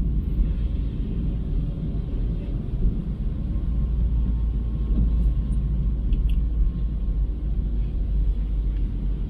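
Steady low rumble of road and engine noise from inside a moving car.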